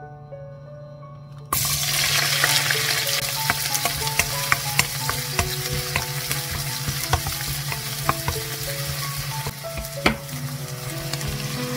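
Chopped green onion and green chillies hit a hot oiled nonstick wok about a second and a half in and start sizzling loudly. A wooden spatula stirs them, with small taps against the pan.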